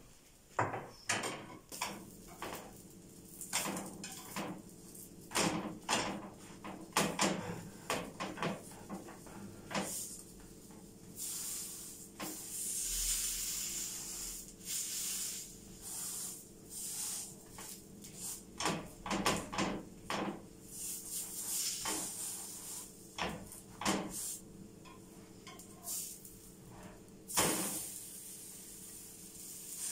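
Stuffed bread loaves frying in a non-stick pan, with many short clicks, taps and scrapes of a metal spatula against the pan and aluminium foil crinkling as it is folded over a plate. There is a longer stretch of hiss about halfway through.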